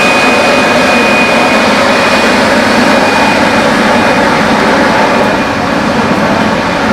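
Boart Longyear LX11 drill rig running during reverse-circulation drilling: a loud, steady mechanical din with a high whine that fades out about four seconds in.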